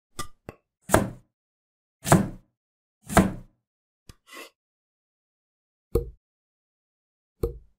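Separate, edited handling sounds on a cypress board: two light taps, then three separate strokes of a blade across the wood about a second apart. A soft click and rustle follow, then two low thuds of wood set down on a table.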